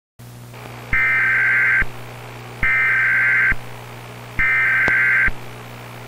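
Emergency Alert System SAME header: three bursts of buzzing digital data tones, each about a second long with short gaps between, over a low steady hum, announcing the start of an emergency alert broadcast.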